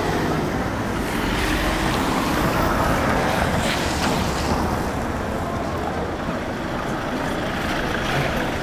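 Street traffic passing: a vehicle's hiss swells to a peak about three seconds in and fades, over a steady low rumble.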